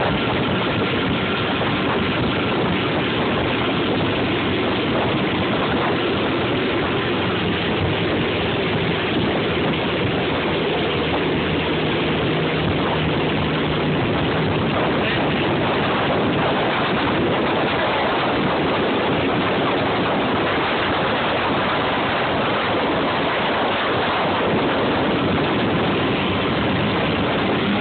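Motorboat running at speed, its engine under the steady rush of the churning wake, with wind on the microphone.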